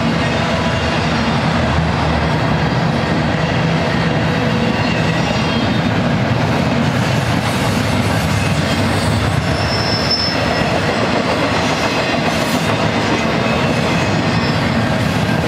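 Double-stack intermodal train's loaded well cars rolling past with a steady wheel-and-rail rumble, and a brief high wheel squeal about two-thirds of the way through.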